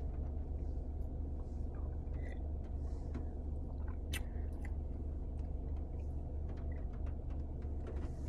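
Quiet handling of a plastic bottle of iced coffee: scattered small clicks as it is opened, a sharper click about four seconds in, then a sip near the end, over a steady low rumble inside a car.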